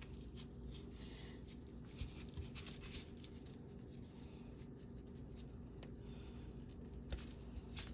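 Faint, scattered rubbing and squishing of gloved hands pressing garlic cloves into slits in a raw leg of lamb, over a steady low room hum.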